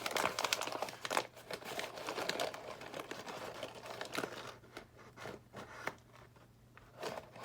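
Packaging crinkling and rustling in irregular crackles as small toy packets are handled and searched, quieter for a stretch near the end, over a faint steady hum.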